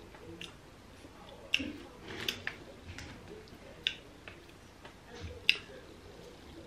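Wet mouth clicks and smacks of someone chewing grilled mackerel, a sharp click every second or so, with soft sounds of fingers picking flesh off the fish.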